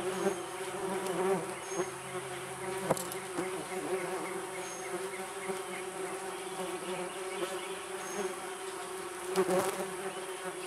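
Yellow jackets buzzing in flight around their ground nest, a steady drone of overlapping wingbeats. A brief knock comes about three seconds in and another near the end.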